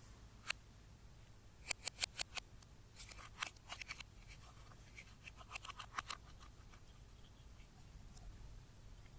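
Sharp clicks and snips in quick runs, several clusters within about six seconds, over a faint steady hum.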